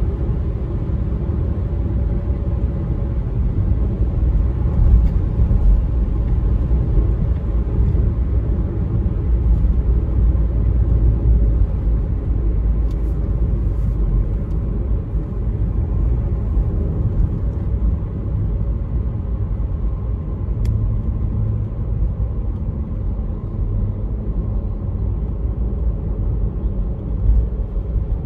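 Steady low rumble of tyre and engine noise inside a car's cabin as it cruises along a highway.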